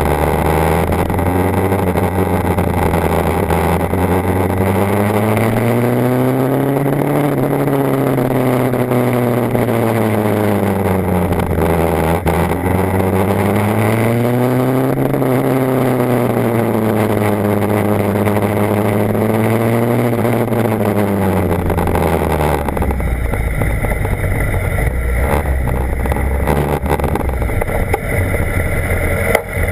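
BMW HP4's inline-four engine running on the move, its pitch rising and falling in two smooth swells as the throttle is opened and eased. About three-quarters of the way through it drops to a low, steady note, like idling.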